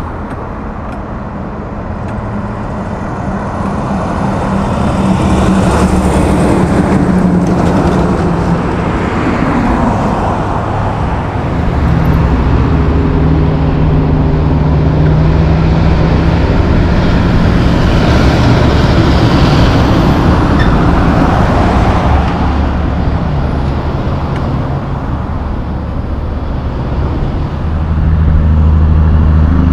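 Road traffic with heavy diesel trucks and cars going by: a low, steady engine sound and tyre noise that grow louder and fade again as the vehicles pass.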